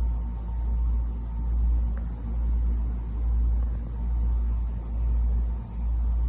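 A loud low rumble that swells and fades about once a second, with a faint steady hum above it.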